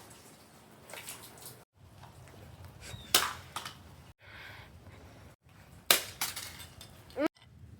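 An alarm clock being dropped and crashing on a hard floor: two sharp crashes about three seconds apart, the first about three seconds in, with smaller knocks and rattles of the clock and its pieces between. The sound breaks off abruptly to silence several times.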